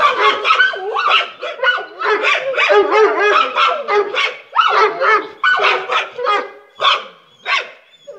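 A Doberman and a Staffordshire terrier barking in a rapid, almost unbroken run of sharp barks, several a second. Near the end the barks thin out to single barks about half a second apart.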